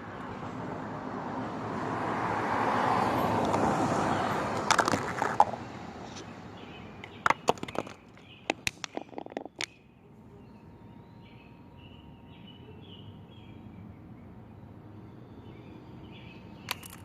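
Liquid yeast mixture being poured into a container of hydrogen peroxide and dish soap: a rushing pour that swells and fades over about five seconds. Then a run of sharp clicks and knocks as the containers are handled. After that it goes quiet, with birds chirping faintly.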